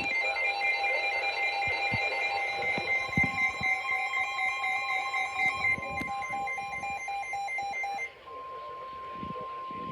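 Several emergency alert tones sounding at once: a steady warning alarm tone over a second, lower tone, with rapid pulsing electronic beeps higher up. About eight seconds in, the beeping and the lower tone stop, leaving the single steady tone.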